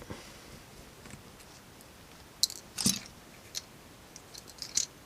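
Small plastic clicks and taps from a car key fob's plastic case being handled and worked at with a tool, with the sharpest clatter about three seconds in.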